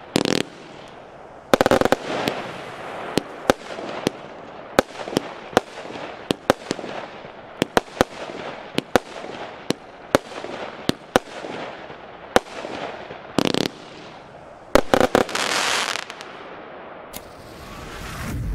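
A 200-shot, 20 mm consumer fireworks battery (cake) firing: sharp bangs of shots launching and bursting at irregular intervals, one or two a second, over a crackling hiss. About fifteen seconds in comes a dense, loud crackling stretch, and near the end a low swelling whoosh rises.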